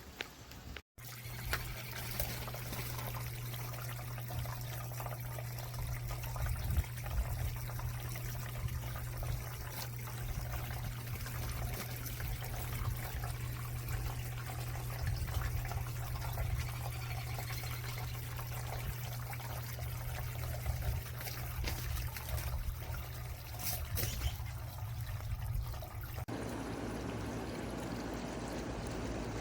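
Feng Shui Import Glenville pump-driven cascading water fountain running, water trickling and splashing down its tiers in a steady stream with a steady low hum underneath. The sound drops out briefly about a second in.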